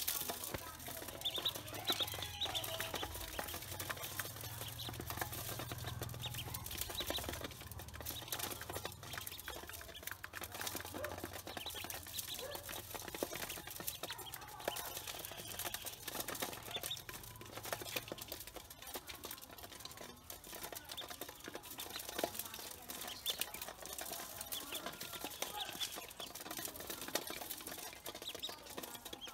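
A brood of domestic ducklings peeping in short high calls, with many small taps and scratches of bills and feet on the metal basin as they feed and scramble.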